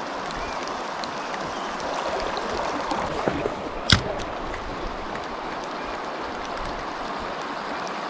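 River water rushing steadily, with one sharp click about four seconds in.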